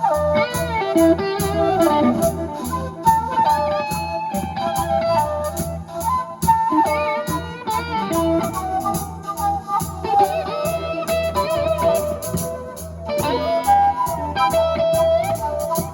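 Rock band playing an instrumental passage: guitar lines with bent notes over bass and a steady drum beat.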